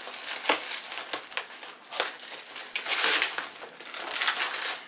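Black plastic mailer film being cut with scissors and torn open, crinkling and rustling in several bursts, with a few sharp snips; loudest about three seconds in.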